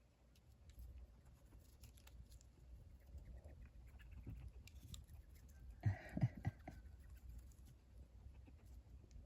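Baby opossum moving about and feeding, making small faint clicks and scuffles. A short cluster of louder knocks comes about six seconds in.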